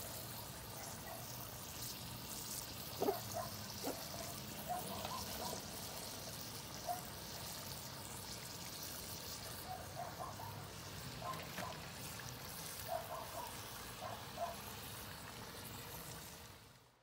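Food frying in hot oil in a large pan over a wood fire: a steady sizzle with small crackles, and a couple of sharp knocks about three and four seconds in.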